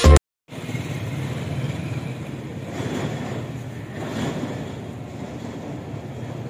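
Intro music cuts off at the start, then after a brief gap comes the steady rumble of a passenger train, heard from on board.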